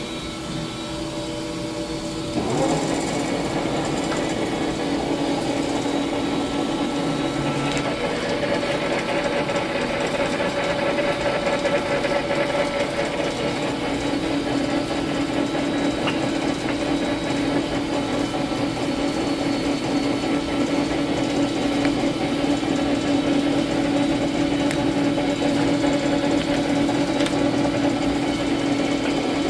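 South Bend Turnado engine lathe running with its chuck spinning: a steady machine hum with a couple of steady tones, getting louder about two and a half seconds in.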